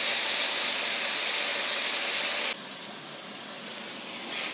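Prawns sizzling in hot oil in a steel wok, a steady hiss that drops suddenly to a much quieter sizzle about two and a half seconds in.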